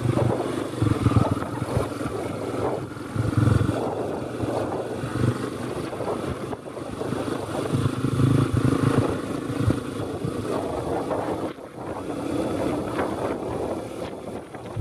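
A small dirt bike's engine running under way, its note swelling and easing with the throttle every second or so, with wind noise on the microphone. There is a brief drop about three-quarters of the way through.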